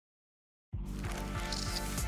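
Silence, then intro music starts abruptly about two-thirds of a second in, with steady held tones over a pulsing bass.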